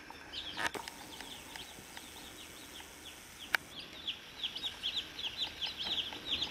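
Day-old chicks peeping: short, high, falling cheeps, scattered at first and then in a quick, steady stream from a little past halfway. Two sharp clicks cut in, one under a second in and a louder one about three and a half seconds in.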